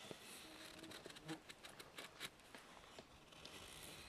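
Knife blade shaving thin curls off a wooden stick to make a feather stick: a quick series of short, quiet scraping strokes.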